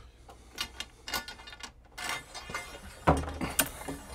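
Steel gas pipe clinking and knocking against galvanized pipe hangers and threaded rod as it is lifted and seated under the joists, with a short scrape about two seconds in and a heavier thud about three seconds in.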